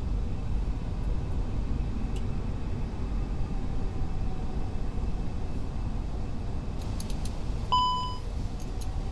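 Steady low rumble of air and engines on an Airbus A380 flight deck during approach. About three-quarters of the way through, a few faint clicks are followed by a single half-second chime, the alert that autothrust has been switched off.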